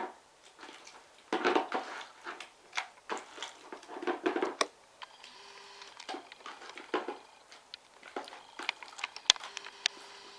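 Slime being kneaded and squeezed by hands coated in glycerin, with two bursts of sticky squishing in the first half, then scattered small clicks and pops.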